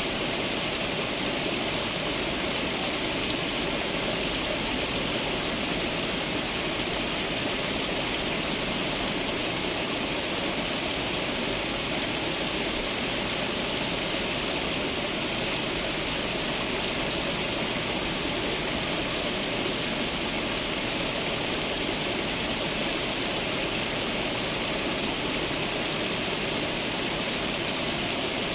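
Fountain water falling and splashing in a steady, unbroken rush.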